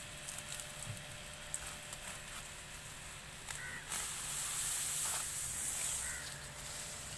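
Long lemongrass leaves rustling and swishing as stalks are grabbed and pulled from the clump, with small snaps; the rustling grows louder for a couple of seconds about four seconds in.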